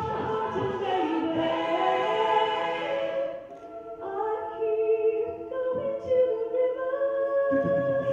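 An a cappella vocal group singing sustained chords in close harmony, with no instruments. The sound dips briefly about three and a half seconds in before a new chord starts. A low rhythmic pulse under the voices drops out past the middle and comes back near the end.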